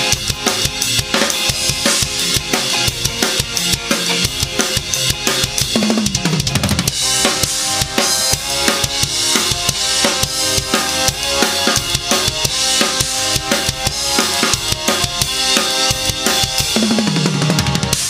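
Custom DW Collector's Series drum kit with waterfall bubinga shells played continuously, bass drum, snare and cymbals, along with a drumless ska backing track.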